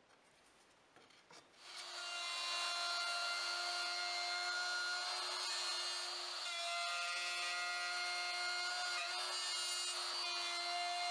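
Trim router starting about two seconds in and then running with a steady high whine, routing into plywood as it is pushed along a speed square. The whine wavers briefly twice as the bit takes load.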